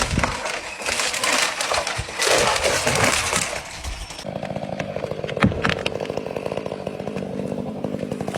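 Chainsaw running, with dense crackling and snapping over it for the first four seconds or so. After that it settles into a steady, even engine note.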